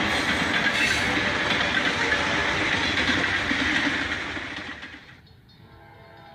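A train rolling past: a steady rumble with the clatter of wheels on the rails, fading out about five seconds in.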